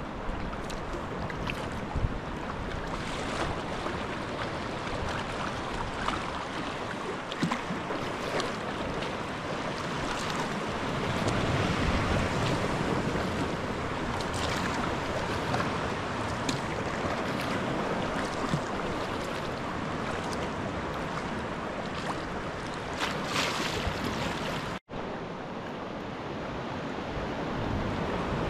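Sea swell washing and breaking on rocks at the foot of cliffs and lapping around a sea kayak, with a few short splashes and wind on the microphone.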